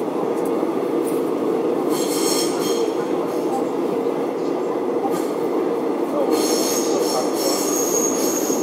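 Subway train running through a tunnel, heard from inside the front car: a steady rumble of wheels on rail, with two spells of high-pitched wheel squeal as it takes a curve, one about two seconds in, the other from about six seconds on.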